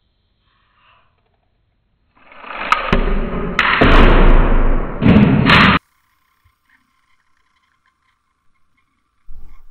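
A Beyblade string launcher is ripped, its plastic gear whirring up, and the lightweight popsicle-stick top rattles and clatters hard against the desk. The loud part swells about two seconds in and cuts off suddenly a little past halfway; afterwards only a faint steady whir is left.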